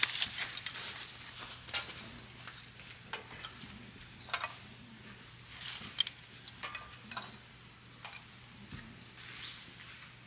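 Scattered light clicks, taps and rustles of camping gear being handled, one sharper tap about six seconds in, over a faint steady low hum.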